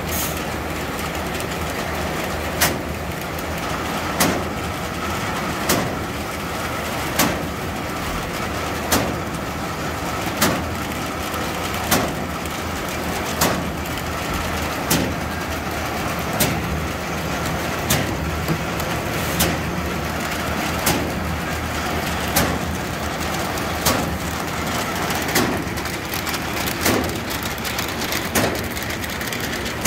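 Matador 50 bag-making machine running at a steady pace: a continuous mechanical hum with a sharp clack about every one and a half seconds, one per machine cycle.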